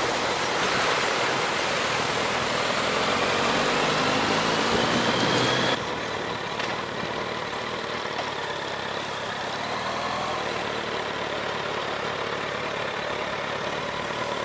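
Motorcycle on the move, heard from an onboard camera: wind rush over the microphone with the engine note rising as the bike accelerates. About six seconds in it cuts to a slightly quieter, steadier ride.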